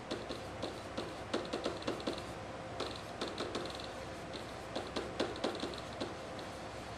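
Pen tapping and scratching on an interactive whiteboard's surface while handwriting a line of text: several quick runs of clicks and short scratchy strokes, with brief pauses between words.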